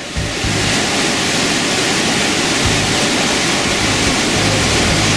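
Loud, steady rush of whitewater rapids on the Upper Gauley River, with music's low bass notes underneath.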